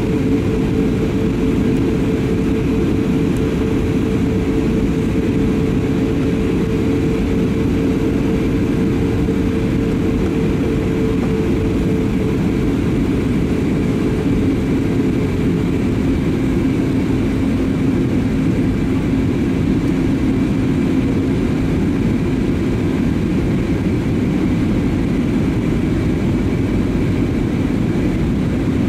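Cabin noise of an Airbus A320neo in flight: a steady rush of airflow with the hum of its Pratt & Whitney PW1100G geared turbofans. The engine hum's tones ease slightly lower and softer about halfway through.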